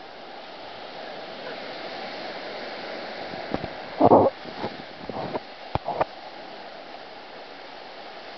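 Ocean surf washing onto the beach, a steady rushing noise. About halfway through come a few short bumps and knocks, the loudest about four seconds in.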